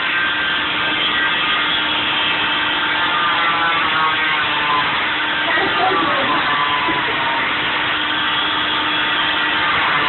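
Oscillating cast saw running steadily as it cuts off a child's arm cast, with a brief wavering in pitch about six seconds in.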